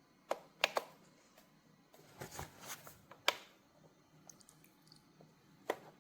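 Handling of a portable jump starter: several sharp clicks and taps, three close together in the first second, another about three seconds in and one near the end, with soft rustling between, as its buttons are pressed.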